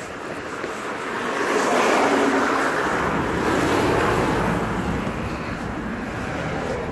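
Wind buffeting a phone's microphone as it is carried along, a rushing noise that builds about a second in and fades over the last couple of seconds.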